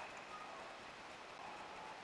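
Faint, steady outdoor background hiss, with a short thin whistle about half a second in.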